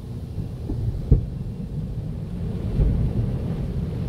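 Tunnel car wash working over the car, heard from inside the cabin: a low rumbling drumming of water and soap on the body, with irregular thumps, the sharpest about a second in.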